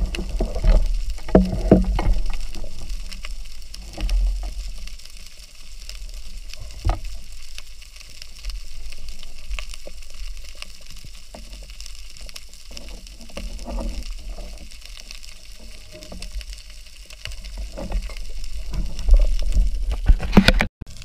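Underwater sound through a camera housing on a speargun: a low water rumble that swells and fades, scattered knocks from handling, and a steady crackling hiss. The sound drops out briefly near the end.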